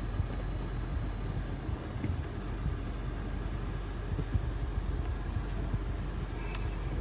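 Car on the move: a steady low road and engine rumble, with a few light knocks and bumps.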